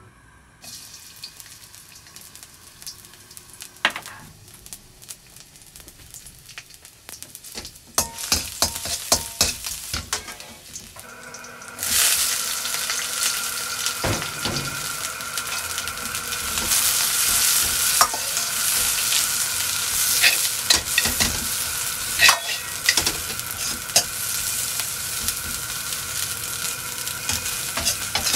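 Chopped garlic sizzling quietly in hot oil in an iron wok, with occasional clinks of a metal ladle. About twelve seconds in, green beans go into the oil and a loud sizzle takes over, while the steel ladle scrapes and taps against the wok as they are stir-fried.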